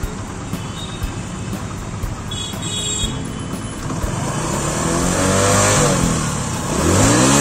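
Motorcycle engine idling, then revved twice in the second half, its pitch rising and falling with each rev and growing louder toward the end.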